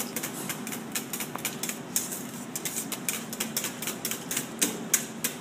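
Wire whisk beating rapidly against the sides of a stainless steel stockpot, a quick run of sharp metallic clicks several times a second, as egg whites are whisked into stock.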